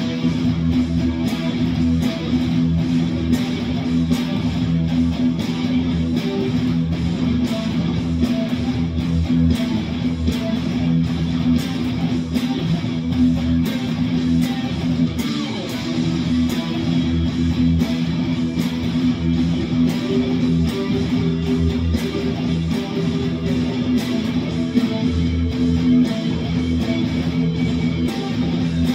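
Guitar music: a guitar strummed in a steady, regular rhythm, with sustained chords throughout.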